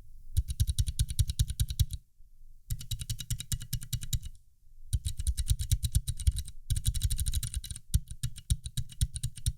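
Mechanical keyboard switches and keycaps in a GK64S build's untreated metal case with no cork lining, tapped in rapid runs of keystrokes with brief pauses between about five runs. The builder hears high frequencies from echoes inside the bare metal case.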